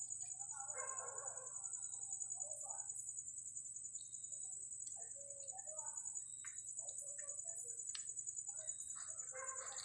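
A steady, high, finely pulsing insect trill, with scattered soft rustles and taps from vinyl sticker lettering being handled and pressed onto the truck's side.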